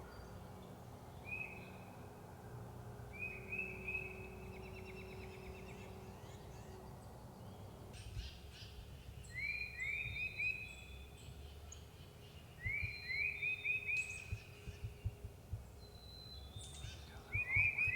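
A bird singing the same short trilled phrase about five times: a quick run of rising notes lasting about a second each time. Low thumps come in the second half.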